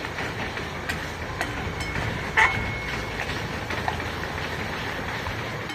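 Masala frying in oil in a metal kadai, sizzling steadily while a spatula stirs it, with a few sharp scrapes of the spatula against the pan.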